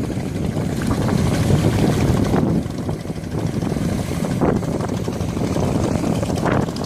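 Wind rumbling on the microphone: a dense, uneven low rumble with no distinct tones.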